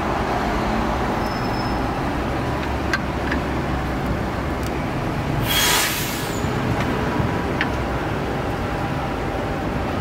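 Steady street-traffic rumble, with a short hiss a little past halfway through and a few faint metallic clicks of spatula on the griddle plates.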